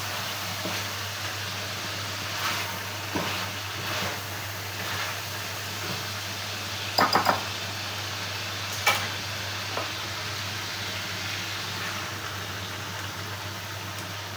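Chicken pieces sizzling in an aluminium pot on a gas burner while a wooden spatula stirs and scrapes them. About seven seconds in there are three quick, loud knocks against the pot, and another a couple of seconds later.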